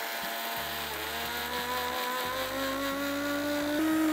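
Preethi Zodiac Cosmo mixer grinder running with its small jar, grinding dry-roasted peanuts, sesame, coriander seeds and dried chillies to a fine powder. A steady motor whine whose pitch creeps slowly upward, stepping up slightly near the end.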